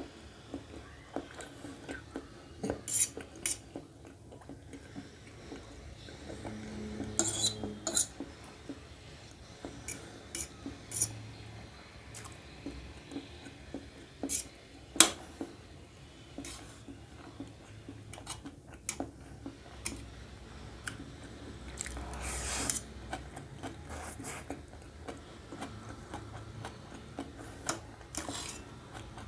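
Steel fork clinking and scraping against a stainless steel plate as noodles are picked up: scattered sharp clicks, with a longer scrape about two-thirds of the way through.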